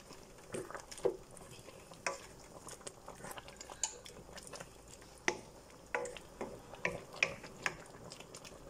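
Thick chilli sauce simmering and reducing in a pan: faint, irregular plops and pops of bubbles bursting at the surface.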